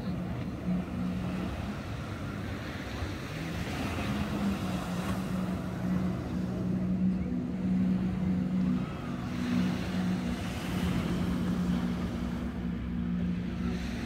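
Motorboat engine droning steadily offshore, with a low, even hum that shifts slightly in pitch, over small waves breaking on the beach.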